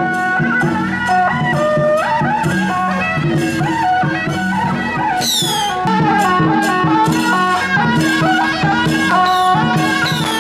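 Traditional Chinese procession music: a wind-instrument melody with bending notes over continuous percussion. A high falling glide sounds briefly about halfway through.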